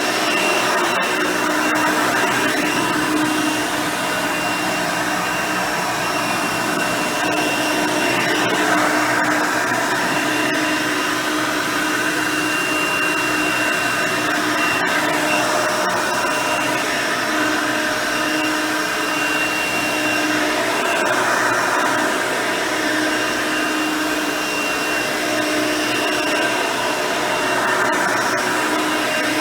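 Hoover Elite 350 upright vacuum cleaner running steadily on carpet, with its 5 amp motor, original 9-blade fan and single-row bristle brush roll. Its tone shifts slightly every couple of seconds.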